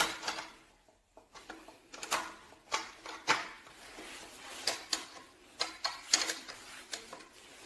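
Irregular metal clicks and knocks of a wrench working on an e-bike's front axle nut, tightening the wheel into the fork.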